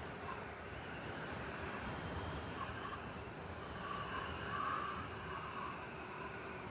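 Blizzard wind blowing through a city street: a steady hiss with a low rumble like distant traffic underneath, swelling in a gust about four to five seconds in.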